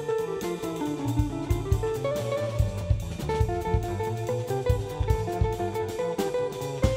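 Jazz trio playing: a hollow-body electric guitar plays over plucked double bass and a drum kit with cymbals.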